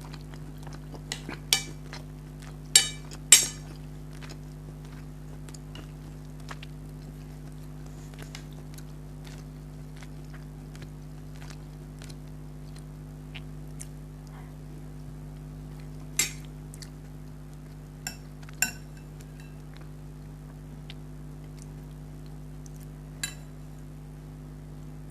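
Cutlery clinking against a dish or bowl, about seven sharp, briefly ringing clinks spread out with long gaps. The loudest two come close together about three seconds in. A steady low hum runs underneath.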